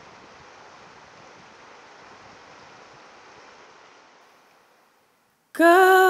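A steady, soft rushing noise, like wind or running water, that fades away about four seconds in. After a brief silence, a voice starts humming one long, loud held note near the end, opening a song.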